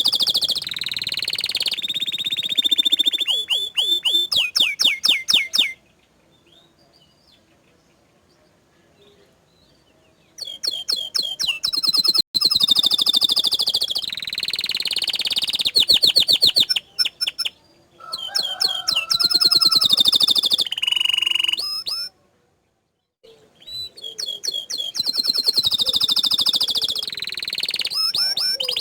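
Canary singing long phrases of fast repeated notes and rolling trills, breaking off for a few seconds about six seconds in and again briefly near the end.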